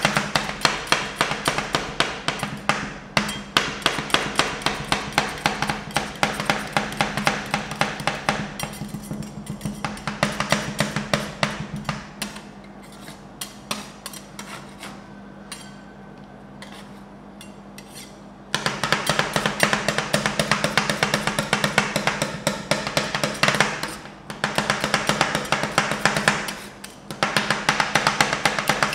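Two metal spatulas chopping rapidly on a frozen steel ice-cream-roll pan, working dried persimmon into the cream in fast clattering taps. About twelve seconds in, the tapping gives way to softer scraping for about six seconds, then the chopping resumes with two short breaks near the end. A steady low hum runs underneath.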